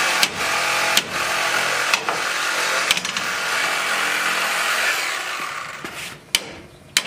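A power tool runs steadily, with sharp knocks about once a second, and winds down after about five seconds. Then two hammer blows strike the rusty rear leaf spring and axle of a 2005 Chevy Silverado near the end.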